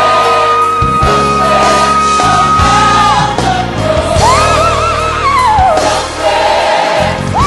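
Gospel song with choir and band: a long high held note, then a shorter high phrase that wavers with vibrato.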